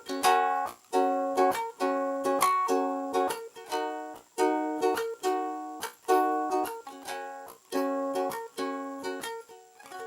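Ukulele strummed in a steady rhythm of chords, about one strum a second, with no singing. The strums grow softer toward the end, and a last chord is struck right at the close.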